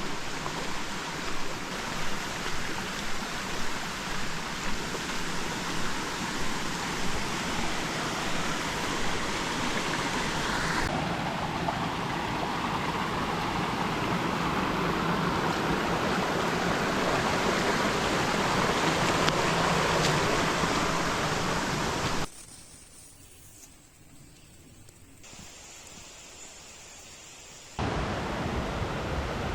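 Steady rushing water of a mountain creek, with soft regular beats in the first several seconds. The sound drops away suddenly about two-thirds of the way in and comes back just before the end.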